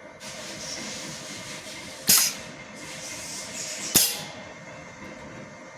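Pneumatic clamp of an ultrasonic wire welding machine working: a steady hiss of compressed air, with two sharp clacks about two seconds apart, each followed by a burst of exhausting air.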